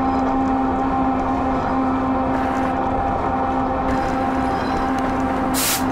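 Strasburg Railroad's Lancaster Oxford & Southern motorcar no. 10 running along the line, heard on board: a steady drone with a constant hum. A brief hiss comes near the end.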